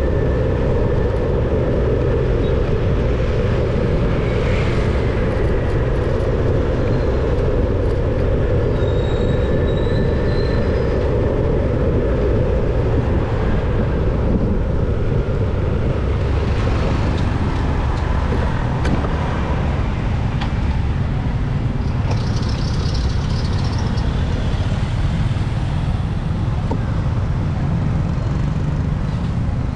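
Steady low rumble of a vehicle driving along a town street: engine, tyre and wind noise.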